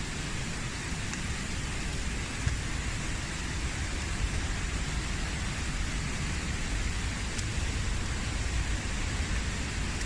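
Steady rush of running water from a mountain river, an even hiss with no pauses.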